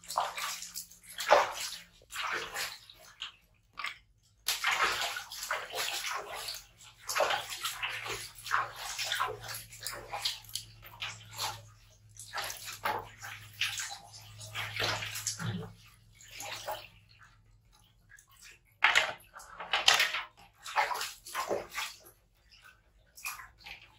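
Water splashing and sloshing in a plastic washbasin in irregular bursts as two baby monkeys are washed by hand, with water poured over them from a toy scoop.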